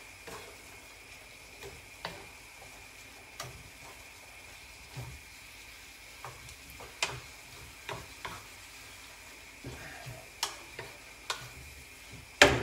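Wooden spatula stirring and scraping stir-fried minced pork in a frying pan, with irregular knocks against the pan over a faint sizzle. A sharper, louder knock comes at the very end.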